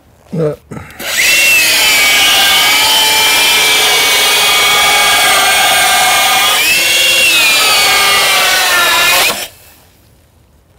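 Bosch 12 V cordless circular saw running and cutting through a wooden floor board for about eight seconds. It starts about a second in and stops sharply near the end. Its pitch dips briefly under load about two-thirds of the way through.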